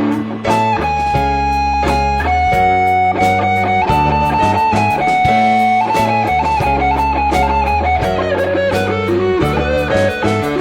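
Instrumental break in a rock song: an electric guitar plays a melodic lead of held notes over bass guitar and drums, the line stepping down in pitch near the end.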